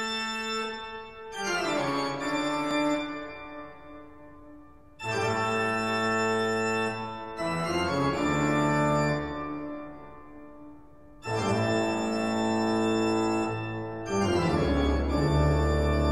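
Background music of organ chords, a new chord struck every few seconds and held as it fades.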